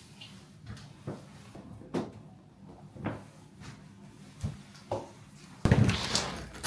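Scattered light knocks and clicks, then a sudden, much louder burst of noise near the end.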